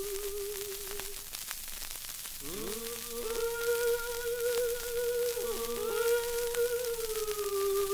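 Background music: a single held melody line with a strong waver, breaking off about a second in and coming back with an upward slide, over a faint hiss.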